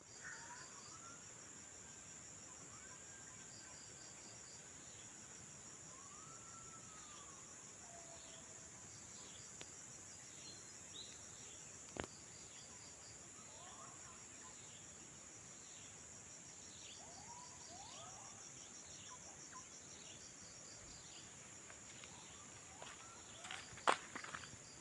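Steady high-pitched insect chorus, a continuous pulsing trill, with scattered whistled calls rising and falling in pitch. There is one sharp click about halfway through and a few knocks near the end.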